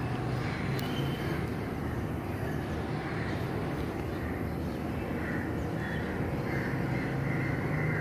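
Steady outdoor city ambience: a low, even hum of distant traffic, with no sudden sounds.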